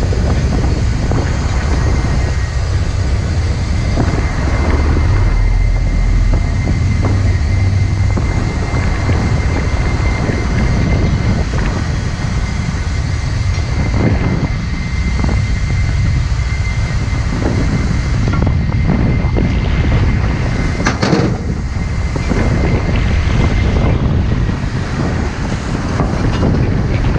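Wind buffeting the microphone over the steady drone of a rescue vessel's engines and the sea, with a faint steady whine running through it. There is a single sharp knock about twenty seconds in.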